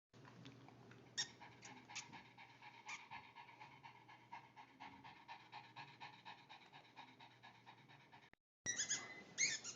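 A pug breathing noisily in a fast, even rhythm, the snuffly, snore-like breathing of a flat-faced dog. After a short break near the end, louder high squeaky sounds come in.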